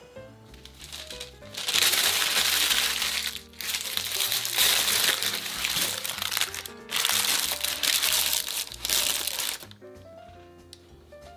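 A sheet of parchment (cooking) paper being crumpled and rustled by hand in three long spells, each a few seconds, with short pauses between, over light background music.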